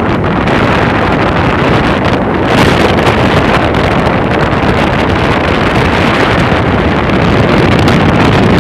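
Wind rushing over the microphone, mixed with the road noise of a car driving at speed. It gets a little louder and hissier about two and a half seconds in.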